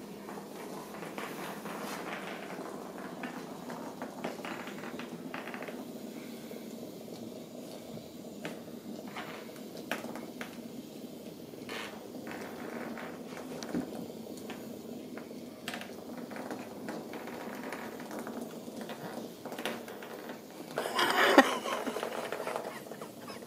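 Ragdoll kittens playing on a tile floor around plastic ring track toys: scattered light clicks, taps and clatter over a steady low hum, with a louder burst of clatter near the end.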